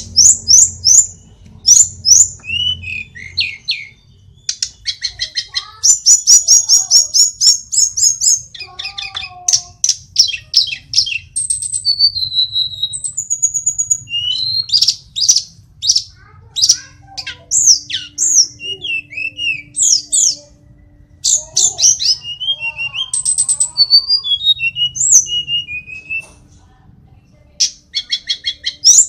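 Caged hill blue flycatcher singing a long, varied song of fast whistled sweeps and rapid trills, in quick phrases broken by short pauses.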